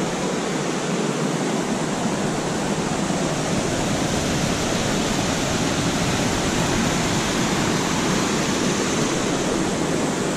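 Steady rush of a rocky stream, water cascading over boulders.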